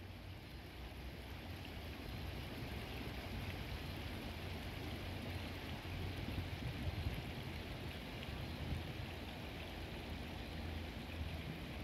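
Steady rush of flowing river water, fading in slowly at first.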